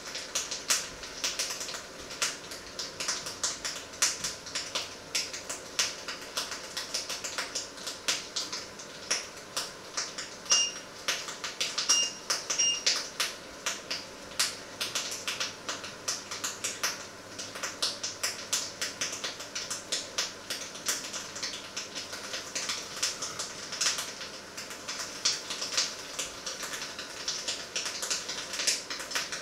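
Food frying in a pan on the hob, fat spitting and crackling in dense, irregular pops. Three short electronic beeps sound about halfway through.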